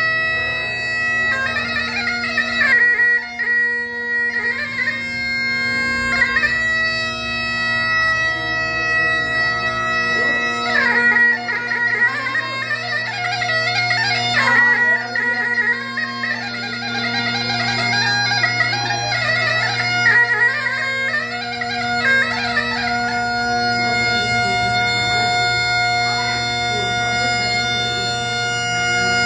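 Masakbeen, the Kumaoni bagpipe, playing a quick, ornamented melody over its steady drone; about three-quarters of the way through the chanter settles on one long held note.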